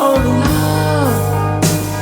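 Rock power-ballad music: electric guitar notes bending down in pitch over a held bass note, with a couple of drum hits.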